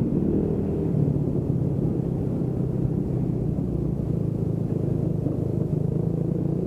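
Motorcycle engine running steadily at low revs, an even low rumble with no wind noise.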